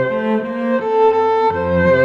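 Background music: bowed strings, violin over cello, playing held notes that change about every half second.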